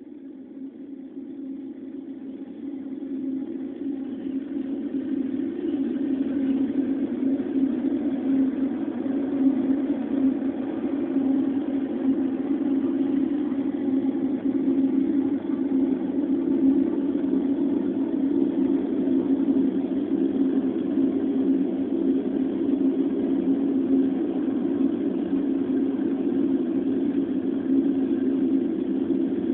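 A low, steady droning rumble that fades in over the first several seconds and then holds level.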